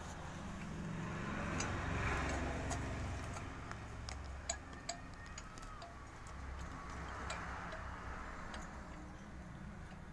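Scattered light metallic ticks and clicks as the aluminium cylinder block of a Bajaj Maxima Z autorickshaw engine is handled and worked down over the piston, over a low steady hum.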